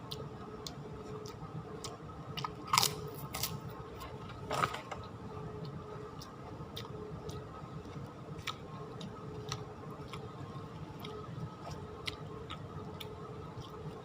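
A person eating ketoprak close to the microphone: chewing with scattered small clicks and crunches, and two louder crunchy bites about three and five seconds in.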